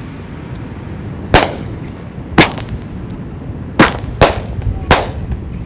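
Fireworks going off in five sharp, irregularly spaced bangs, two of them close together near the end, over a steady low rumble.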